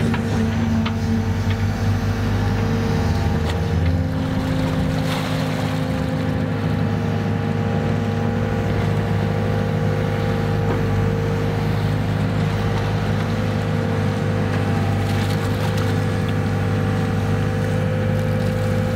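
Excavator's diesel engine and hydraulics running steadily while the bucket digs and lifts muck, heard from the operator's cab. The drone holds steady, with a higher hum that shifts in pitch a couple of times in the first few seconds.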